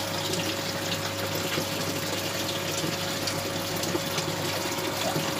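Aquarium filter pump running, a steady rush of falling water over a low hum and a thin steady tone.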